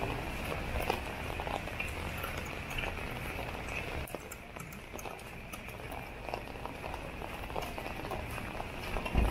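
Light rain pattering on an umbrella held overhead, a dense patter of small ticks over a steady hiss of rain on wet pavement. A single low thump comes near the end.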